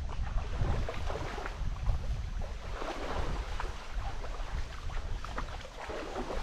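Small sea waves lapping and splashing at the shoreline in irregular bursts, with wind rumbling on the microphone.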